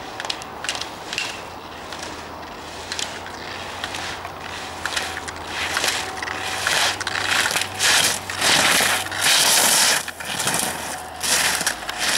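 Slalom skis carving and scraping over hard-packed snow, a rasping hiss that comes in long loud surges with each turn in the second half, mixed with sharp clacks of slalom gate poles being struck aside.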